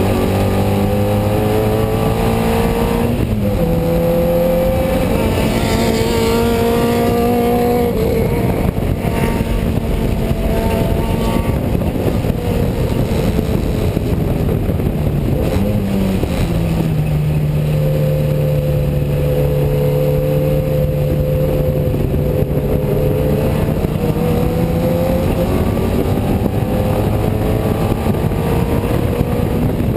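Unipower GT race car's BMC A-series four-cylinder engine heard from inside the cockpit at racing speed, its pitch rising and falling with the throttle, with a gear change about 16 seconds in. Road and wind noise run underneath.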